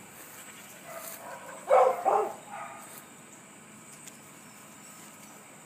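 A dog barks twice in quick succession about two seconds in.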